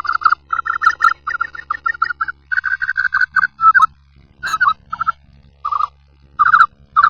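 Bird-like creature call sound effect: fast runs of short, sharp chattering notes at about one pitch, several a second, with a couple of brief pauses around the middle, over a faint low hum.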